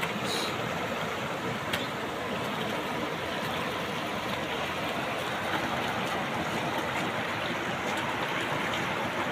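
Fast, swollen muddy river rushing over rocks: a steady hiss of flowing water, with a faint click about two seconds in.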